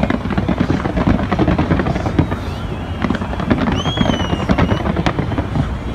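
Fireworks going off in a dense, rapid string of bangs and crackles over a continuous low rumble, with a short high whistle about two-thirds of the way in.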